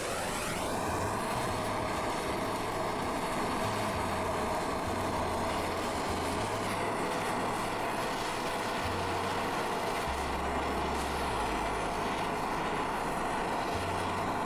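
Propylene-butane torch flame burning steadily with a continuous, even rushing noise, heating a ceramic circuit board red-hot.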